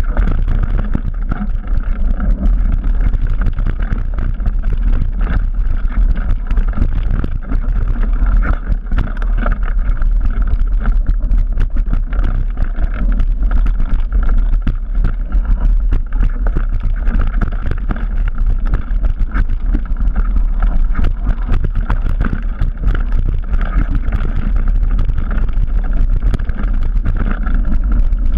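Wind buffeting the camera microphone on a Trek Remedy 9 mountain bike riding down a dirt singletrack, with a steady rumble of tyres on dirt and many small rattles and knocks from the bike over rough ground.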